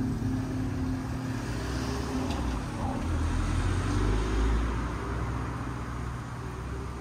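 City street traffic with a car passing, loudest about four seconds in, over a faint steady low hum.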